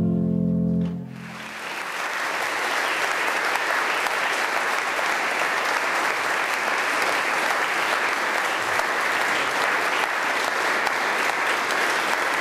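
A held chord of music breaks off about a second in, followed by steady applause.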